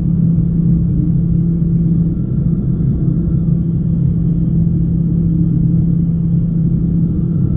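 Piper Malibu Meridian's PT6A turboprop engine and propeller running steadily in flight, heard inside the cabin as a loud, even drone with a strong low hum.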